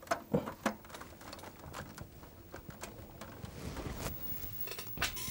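Scattered clicks and knocks of hands handling equipment off camera, a few in the first second and a quick cluster of sharper clicks near the end.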